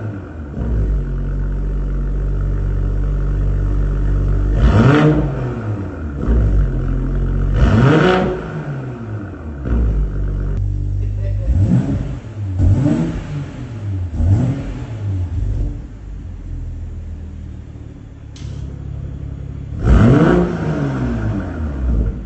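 BMW M440i's 3.0-litre turbocharged B58 straight-six, through a valved stainless-steel catback exhaust, idling and blipped about six times, each rev rising quickly and falling back to idle.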